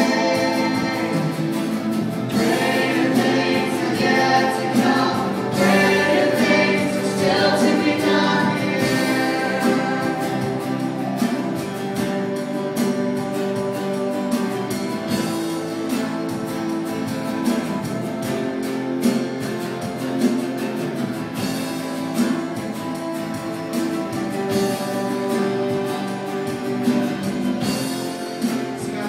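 Live church worship band playing a contemporary worship song: several voices singing together over drums, guitar and keyboard.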